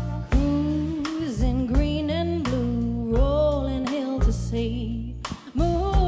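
Live soul band playing: drums and bass under a wavering melody line, with a short break near the end before the band hits back in.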